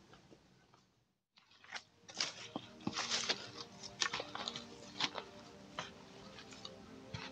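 Hiking boots crunching over dry fallen leaves and loose stones on a forest path. The footsteps come as an irregular run of crackling crunches after a brief dropout about a second in.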